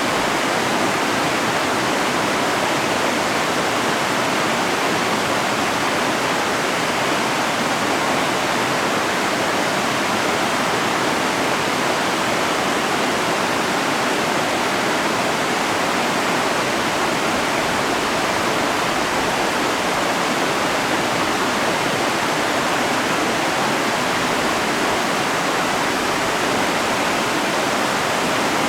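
Mountain river rushing steadily over rocks, with an even, unbroken roar of moving water.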